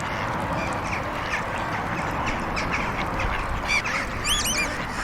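Ducks quacking at a pond over a steady hum of traffic on a road behind. A small bird's quick chirps come in about four seconds in.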